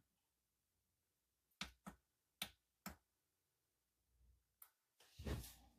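Near silence broken by about five faint, sharp clicks of a power cable plug being handled and pushed into its socket, then a brief soft rustle near the end.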